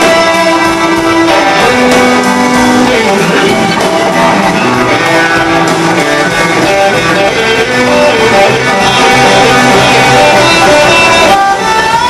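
Live band playing, with an electric guitar carrying long held notes that glide between pitches over the drums and bass; about 11 seconds in, a note slides up and is held.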